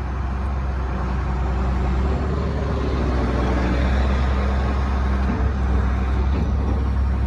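Case CX330 excavator's diesel engine running steadily while the hydraulics are worked through the joystick controls, the sound growing a little louder and fuller about two seconds in as the machine takes load.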